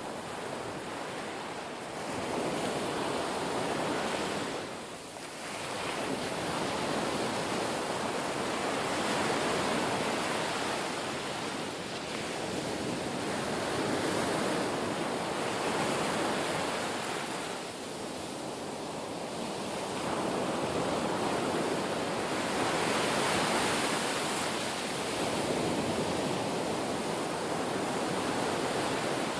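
Ocean surf: a steady rush of waves washing in and drawing back, swelling and easing in slow surges with a lull every several seconds.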